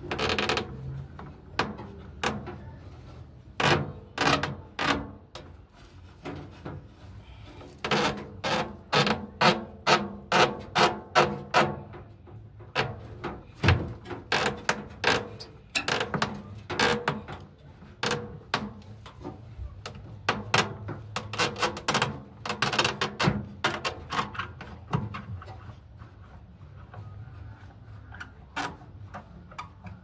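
Screwdriver clicking and knocking against the washing machine's plastic drain pump casing and hose fittings, in bursts of two or three knocks a second with pauses between.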